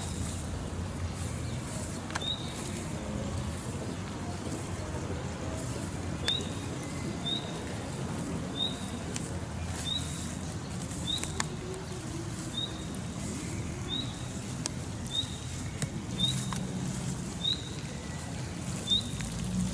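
A small songbird calling one short rising note over and over, about once every second and a bit, over a steady low background rumble.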